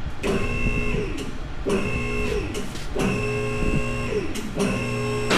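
Vehicle lift's electric-hydraulic power unit running in four short bursts of about a second each, a hum with a high whine that winds down at the end of each burst, as the lift raises a truck cab off its frame in steps.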